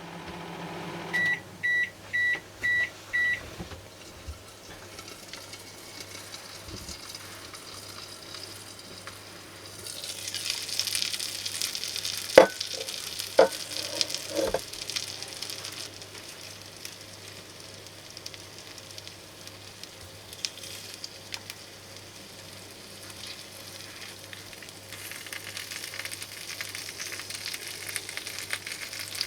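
Microwave oven beeping five times, evenly spaced, about a second in, signalling the end of its cooking cycle. After that, salted mackerel sizzles in a microwave grilling pan, with three sharp knocks in the middle.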